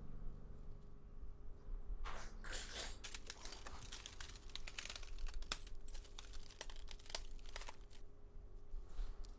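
Crinkling and rustling, as of something crumpled or unwrapped by hand, with many sharp crackles. It starts about two seconds in and stops about eight seconds in.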